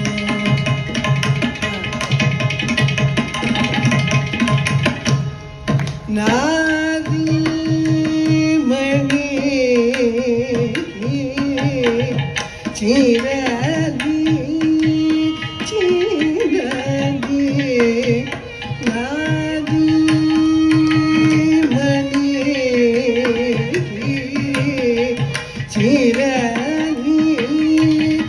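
Carnatic classical music: mridangam and ghatam play a dense drum passage, and about six seconds in a woman's voice takes up the melody with sliding, wavering ornamented notes over the continuing percussion.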